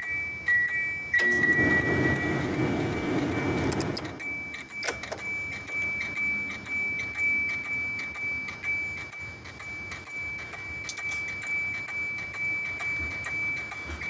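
1991 Subaru Loyale's door warning chime, dinging about twice a second over a steady high ring. A few seconds of rough noise sound over it about a second in.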